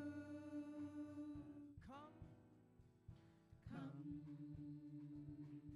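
Church praise team singing a slow worship song, holding long notes, with new sung phrases sliding in about two seconds in and again near four seconds.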